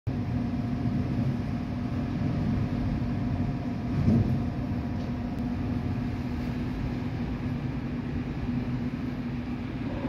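Storm wind rumbling against a building's glass entrance doors, a dense low noise with a steady hum through it and a brief gust about four seconds in.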